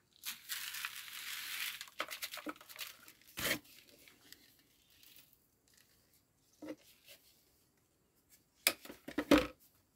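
Handling of the ground corn and the plastic mill buckets: a rustling hiss for about two seconds, a sharp knock about three and a half seconds in, then a few louder clunks of plastic bucket near the end.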